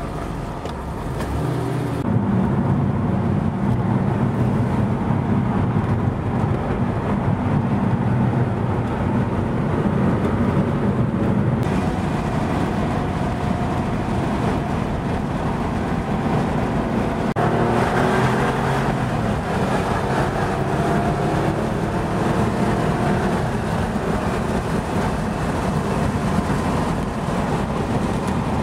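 Porsche 964's 3.6-litre air-cooled flat-six running under way, heard from inside the cabin with road noise. It gets louder about two seconds in, and in the second half the engine note rises several times as the car accelerates.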